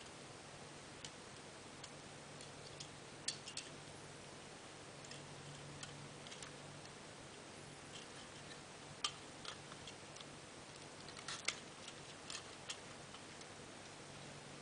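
Hard plastic toy parts clicking and snapping as the pieces of a transforming robot toy are pulled apart and pressed together: scattered sharp clicks, with a quick run of several about eleven seconds in, over a faint steady hum.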